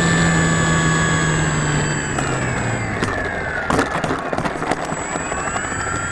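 Electric motor and propeller of a Durafly Tundra RC plane, its steady whine winding down about two seconds in as the throttle is cut. A short run of sharp clicks and knocks follows, as the plane rolls on the cracked runway. The motor whine rises again near the end as it spools back up.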